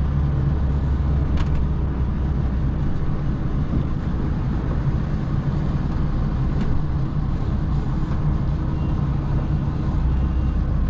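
HGV lorry's diesel engine running, heard from inside the cab as a steady low drone; its lowest note eases off about three seconds in and comes back near the end. Two faint clicks about a second and a half and six and a half seconds in.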